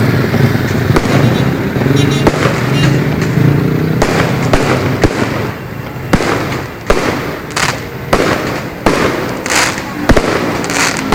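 Fireworks going off in quick, irregular succession: many sharp bangs and pops, some louder reports in the second half.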